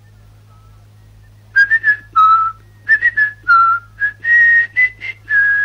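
A person whistling a quick, jaunty tune of a dozen or so short notes, hopping between a few pitches, starting about a second and a half in.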